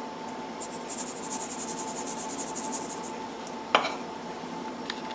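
Small wire-mesh sieve being shaken while sifting flour and cocoa into batter: a fast, high rasping for about two and a half seconds, then a single sharp tap on the sieve.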